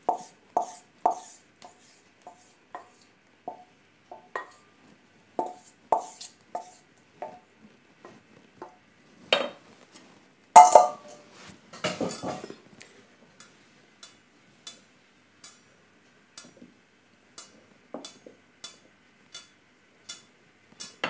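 Wooden spoon knocking repeatedly against a stainless steel mixing bowl, about twice a second, as egusi puree is scraped out into the skillet. A louder metal clatter comes around the middle as the bowl is put down, then the spoon stirs in the metal pan with light, regular taps.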